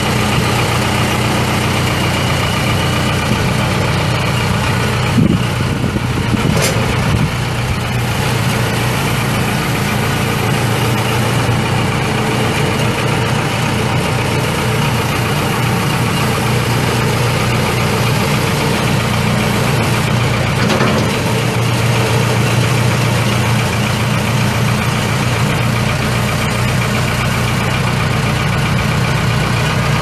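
Case 580L backhoe's Cummins four-cylinder diesel engine idling steadily, with a brief knock about five seconds in.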